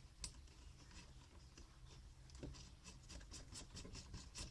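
Faint handling sounds, small clicks and scrapes, as the flex shaft attachment is twisted into a rotary tool until it locks.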